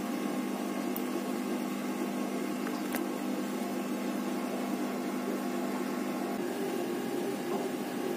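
A steady low machine hum, with two faint clicks about one and three seconds in.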